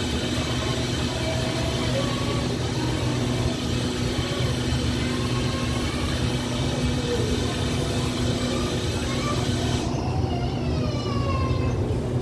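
Diesel passenger train standing at a station platform with its engines running, a steady low hum.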